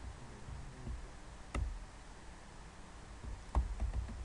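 A few keystrokes on a computer keyboard: a single sharp click about a third of the way in, then a short cluster of clicks near the end, over a low background rumble.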